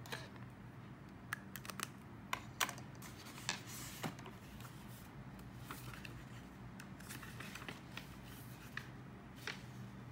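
Extra-fine-nib fountain pen and hand working on sketchbook paper: a scatter of small ticks and short scratches, busiest in the first half, over a faint steady hum.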